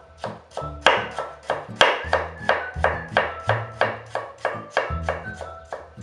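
Kitchen knife chopping fresh ginger into thin strips on a bamboo cutting board, a quick even run of knocks about four or five a second, over background music.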